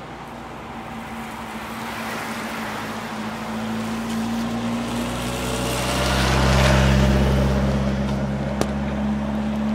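A motorcycle drives past on a wet road, its engine and the hiss of its tyres growing to a peak about six to seven seconds in, with the pitch dropping as it goes by.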